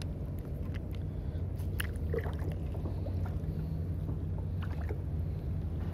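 Choppy water lapping around a kayak, with a steady low hum underneath and a few faint scattered clicks and splashes.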